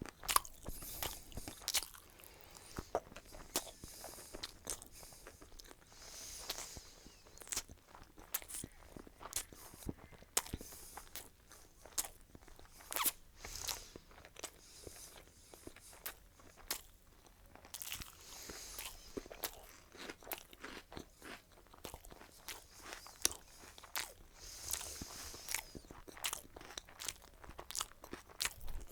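A person eating close to the microphone: irregular crunchy bites and chewing with wet mouth sounds.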